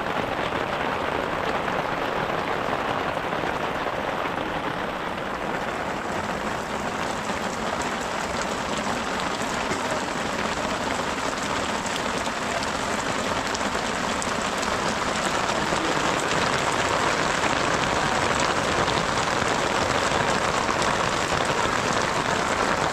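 Heavy rain falling steadily on a plastic-sheet awning and muddy ground, with water streaming off the sheet's edge. It grows a little louder in the second half.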